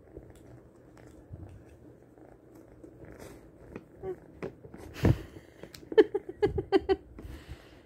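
Kitten pawing at the lid of a clear plastic food container, its paws and claws knocking and clicking on the plastic: a loud knock about five seconds in, then a quick run of sharp clicks about a second later.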